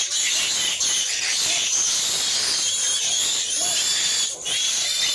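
Native piglets squealing, with a few short grunts, over a steady high-pitched hiss.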